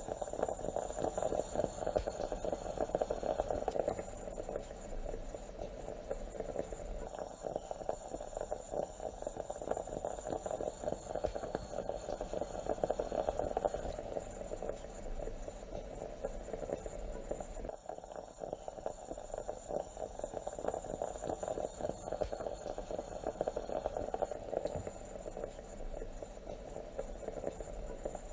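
Stovetop moka pot gurgling and sputtering as the brewed coffee is pushed up into the upper chamber: a dense, crackling bubbling that swells and eases every several seconds.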